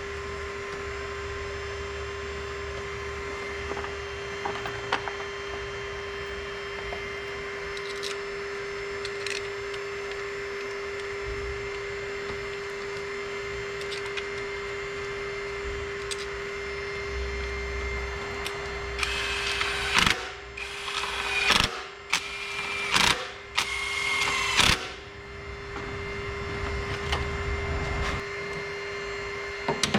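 Hand tools working on the engine's coil packs: scattered clicks and knocks, then a cluster of louder ratcheting bursts a little past the middle, over a steady hum.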